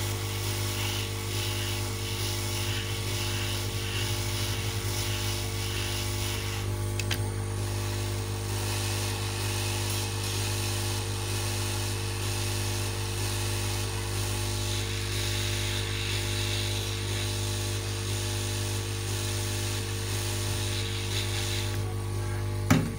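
Hot air gun running steadily, its blower motor humming at a constant pitch while it heats the solder of a flash memory chip on a circuit board.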